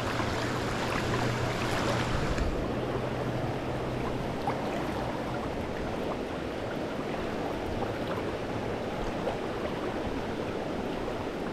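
Current of a shallow, riffled trout stream rushing steadily, an even hiss of water that is brighter for the first two seconds or so, then settles.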